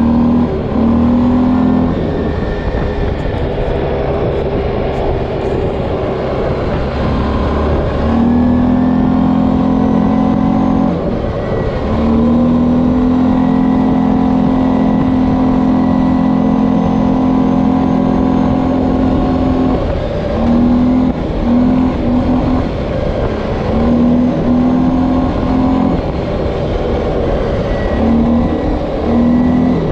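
Linhai 500 ProMax ATV's single-cylinder engine under way, the throttle held open for several seconds at a time and then opened and eased in short bursts near the end, over a constant low rumble.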